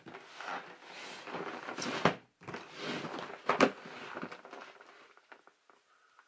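Large cardboard box handled and turned over by hand, its sides rubbing and scraping, with two sharp knocks about two and three and a half seconds in; the handling fades out over the last second or two.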